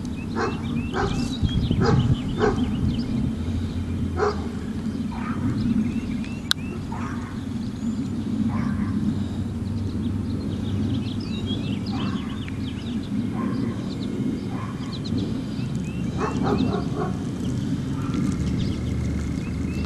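Birds chirping and a dog barking at irregular intervals over a steady low rumble.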